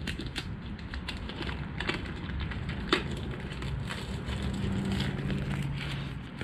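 Crinkling and crackling of a new Honda oil filter being unpacked from its box and wrapping, with scattered sharp clicks, the sharpest about three seconds in.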